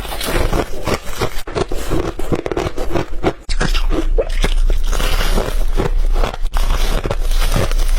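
A person biting and chewing white ice: dense, irregular crunching that goes on without a break.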